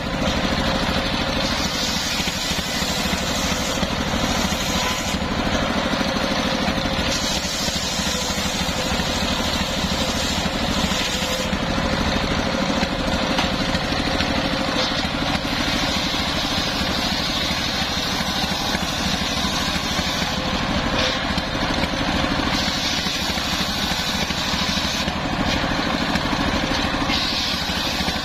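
Homemade belt-driven circular saw bench running steadily, its engine and spinning blade going throughout while planks are ripped lengthwise. The hiss of the blade in the wood swells and eases every few seconds as each cut is made.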